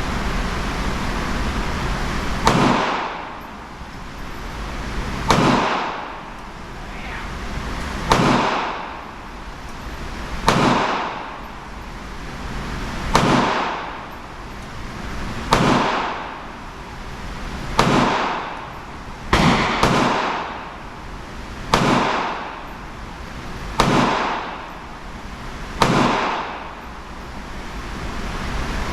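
Single-action .22 revolver with a 6.5-inch barrel fired twelve times at a slow, steady pace, about one shot every two to three seconds. Each shot is a sharp crack followed by a fading echo. Two of the shots come close together about twenty seconds in.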